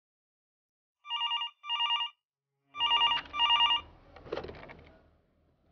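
Desk telephone ringing: two double rings, each a short trilling burst, then the ringing stops and the handset is lifted with a brief clatter.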